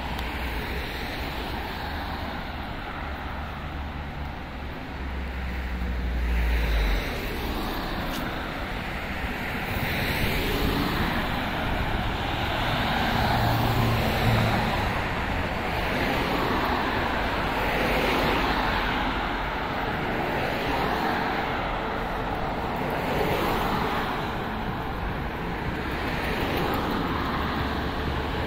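City road traffic: a steady wash of road noise, with several cars passing one after another, each swelling and fading. A low rumble sits underneath for the first few seconds.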